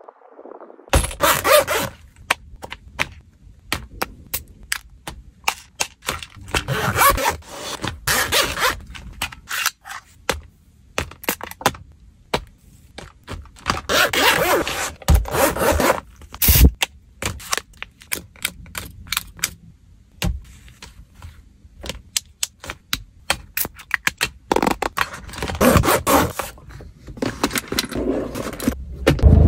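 Close-miked handling sounds of small items being packed into a pouch and a car's console compartment: many sharp taps and clicks, with stretches of scraping and rustling.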